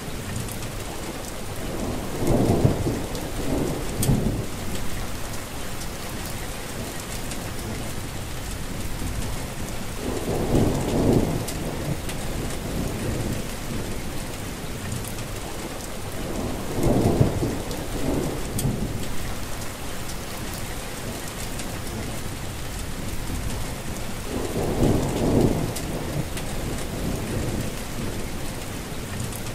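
Steady rain falling, with a low rumble that swells and fades four times, each lasting a couple of seconds.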